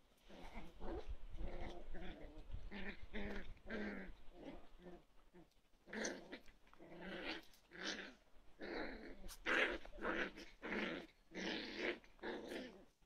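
Toy poodle puppies play-growling as they wrestle, a string of short growls and yips about once a second, with a brief lull near the middle.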